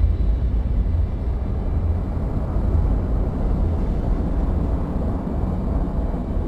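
Steady deep underwater rumble of a submerged submarine, a low even drone with a faint hiss above it.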